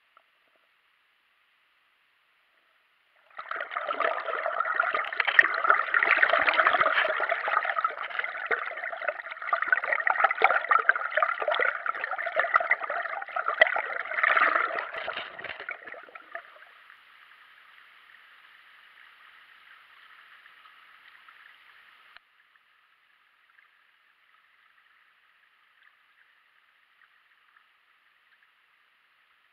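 River water rushing and gurgling around an action camera held under the surface. The sound starts suddenly a few seconds in and dies away about sixteen seconds in, leaving a faint steady hiss.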